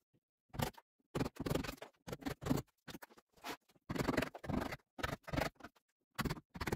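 Hammer driving a chisel into a log wall, the chisel biting and scraping into the wood: irregular short knocks and scrapes, about a dozen over several seconds.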